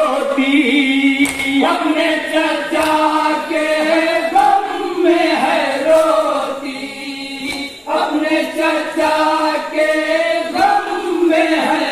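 Men's voices chanting a Muharram noha, a Shia lament for Karbala, in unison, with a short break between lines about eight seconds in. Sharp slaps of chest-beating matam come now and then.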